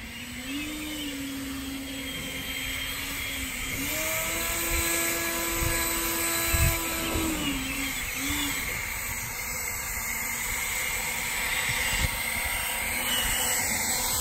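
EGO cordless battery-powered leaf blower running: a steady rush of air with an electric motor whine that comes up to speed near the start and steps up and down in pitch a few times.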